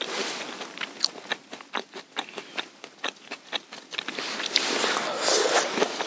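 A person chewing food close to a clip-on microphone: an irregular run of small crunchy clicks, a few a second, with a soft rustle near the end.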